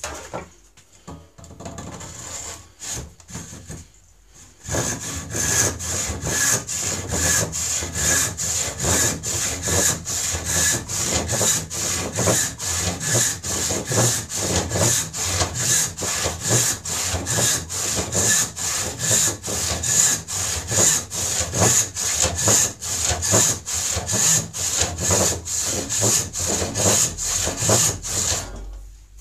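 Hand rip saw cutting lengthwise down a board clamped upright in a vise. A few light strokes start the kerf, then about five seconds in it settles into steady full strokes at about two a second, stopping shortly before the end.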